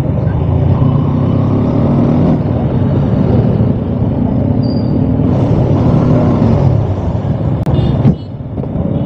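Yamaha R15 sport bike's single-cylinder engine running under way at low speed, heard close at the handlebars, with traffic around it. The sound drops in level about eight seconds in.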